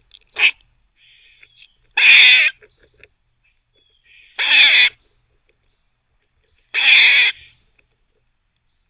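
Eastern gray squirrel barking while it gnaws: one short bark, then three loud half-second barks about two and a half seconds apart.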